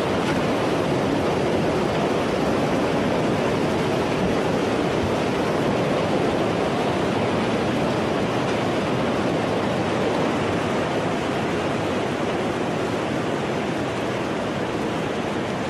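Tsunami floodwater surging over a harbour seawall: a steady rushing of churning water with no break, easing slightly near the end.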